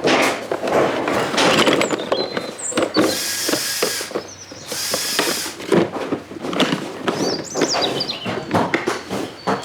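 Construction-site noise: irregular clattering and knocking of tools and materials. Two short bursts of high hissing come about three and five seconds in, and a few short squeaks follow.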